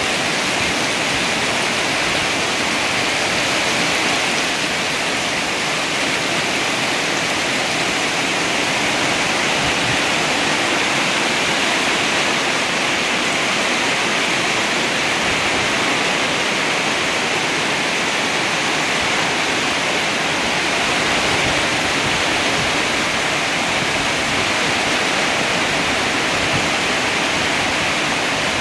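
Heavy storm rain pouring down: a steady, dense hiss of rain on leaves and splashing into standing water on paving.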